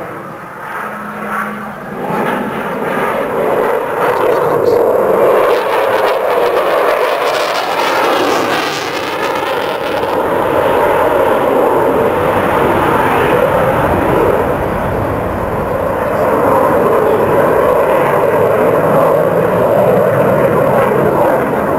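Jet engine noise from an RAF Eurofighter Typhoon flying a display pass: loud and steady once it builds up over the first couple of seconds, with a sweeping, swirling phasing in the sound around a third of the way in as the jet passes.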